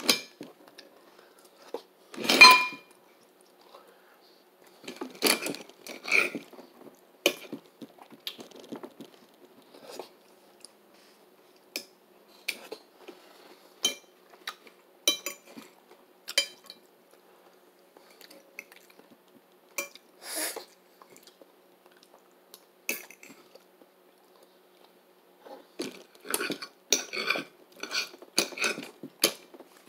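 Cutlery clinking and scraping against a plate during a meal, in short, irregular clusters of clicks that are busiest near the end.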